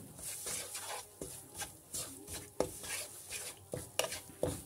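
Wooden spatula stirring and scraping semolina through melted butter in a kadai, with irregular knocks of the spatula against the pan; the semolina is being roasted in the butter. A few knocks stand out, one about halfway through and two near the end.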